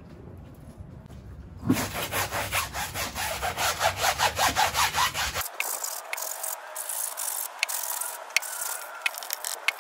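Stiff hand scrub brush scrubbing a tire sidewall and wheel rim wet with soap and degreaser, in quick rhythmic back-and-forth strokes, about five a second. About halfway through, the scrubbing goes on more softly, with a few sharp clicks.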